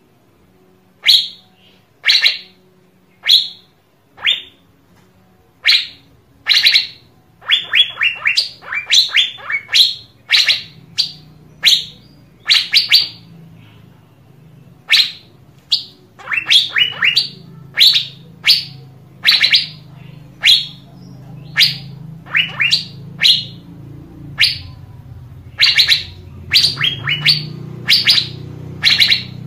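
Asian fairy-bluebird calling: short, sharp high notes about once a second, now and then running into quick strings of several notes. A low steady hum lies underneath from about a third of the way in and grows louder near the end.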